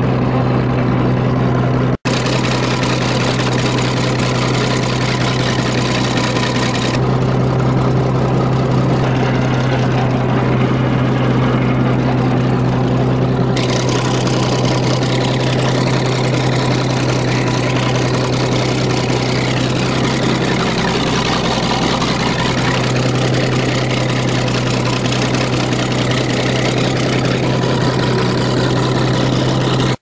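Bulldozer engine running steadily, heard from the operator's seat, with a strong low hum. There is one very short break about two seconds in.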